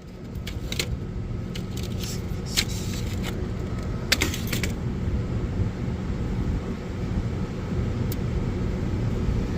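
Steady low machinery hum of a rooftop HVAC unit, with a few sharp metallic clicks and rattles from handling the unit's parts, the loudest about two and a half and four seconds in.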